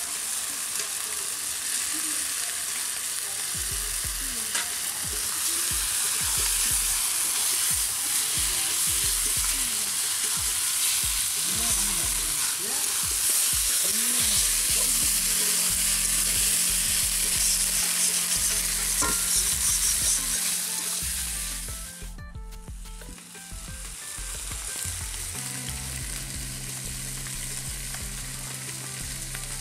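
Meat pieces frying in hot spiced oil in a steel kadai over a wood fire, sizzling loudly while a metal spatula scrapes and stirs them against the pan. The sizzle drops away briefly about 22 seconds in, then carries on a little quieter.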